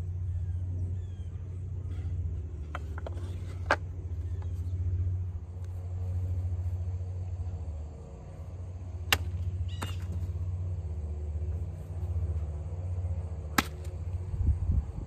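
Hanwei Practical Plus XL katana slicing through rolled tatami mat targets: three sharp, short cuts several seconds apart, with a few fainter clicks, over a steady low rumble.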